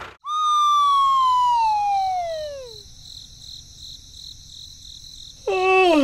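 Cartoon sound effects: a long whistle glides slowly downward for about two and a half seconds, then crickets chirp steadily at a low level. Near the end a second pitched sound drops down in steps.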